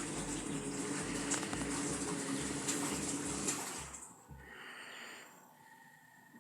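Washing machine running a wash: water churning in the tub over a motor hum, with a low throb pulsing two or three times a second. About four seconds in the sound drops away, leaving it much quieter.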